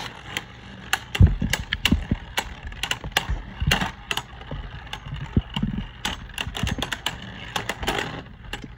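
Two Beyblade Burst Turbo spinning tops battling in a plastic stadium, knocking together in rapid, irregular clacks, with a few heavier knocks about a second in.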